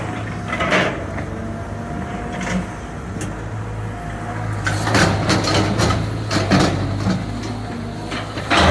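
Caterpillar 320 GC excavator's diesel engine running with a steady low hum, broken by several sharp knocks and clanks, a cluster of them about five seconds in and another just before the end.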